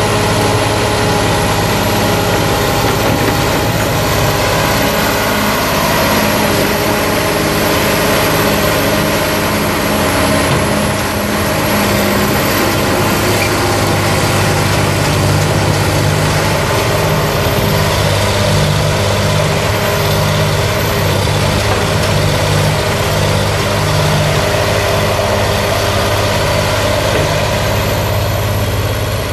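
1977 John Deere 690B excavator's six-cylinder turbo diesel running steadily as the machine swings and works its boom. It is a loud, even drone with a strong low hum, its lower tones shifting about halfway through.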